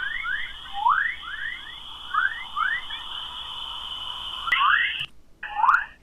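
An eerie space-sound recording: a steady high whine with quick rising chirps repeating two or three times a second, like a flock of birds, cutting out briefly about five seconds in before resuming.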